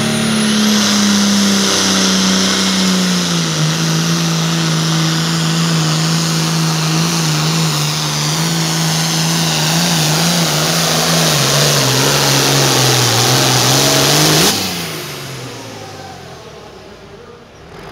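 Hot farm pulling tractor's engine at full throttle, pulling the sled, its pitch sagging lower in steps as the load builds. About three seconds before the end the throttle is chopped and the engine winds down quickly.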